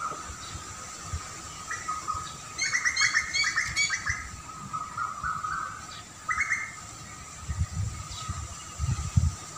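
Wild birds calling: a quick run of chirps about three seconds in, then a few shorter calls, over a faint steady background tone. Low rumbles near the end.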